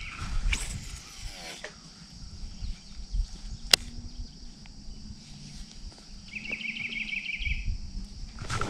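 Baitcasting rod and reel: a cast swishes out and the spool pays out line. A sharp click comes about four seconds in as the reel engages, then the reel is cranked in with a low whir. A bird trills briefly near the end over a steady high hiss.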